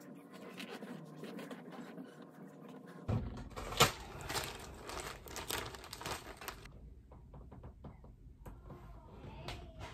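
Close handling noises: soft rustling, then one sharp knock a little under four seconds in as the phone is moved, followed by small scattered clicks of metal earrings being handled.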